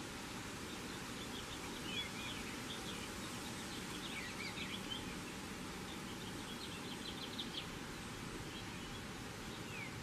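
A songbird's short high chirps and quick down-slurred notes, in several brief phrases a few seconds apart, over a steady outdoor hiss.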